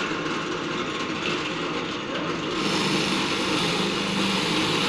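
Drill press motor running steadily; about two and a half seconds in, a louder hiss joins as the bit is fed down and bores into wood.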